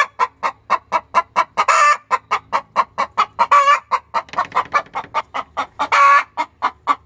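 Hen's egg song: a steady run of short clucks, about four a second, broken three times by a longer drawn-out squawk, the cackle a hen gives after laying an egg.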